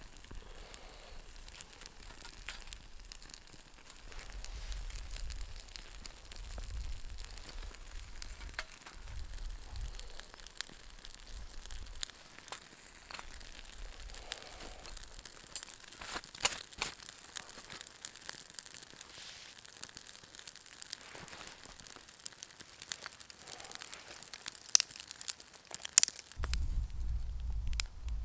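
Crackling and clicking of a small wood fire in a folding metal box stove as split kindling sticks are fed in, with a few louder sharp knocks about two-thirds of the way through and near the end. Bursts of low wind rumble come and go.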